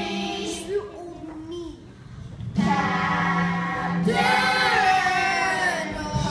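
Children singing a stage-musical number together, dropping to a softer line about a second in and coming back loud at about two and a half seconds.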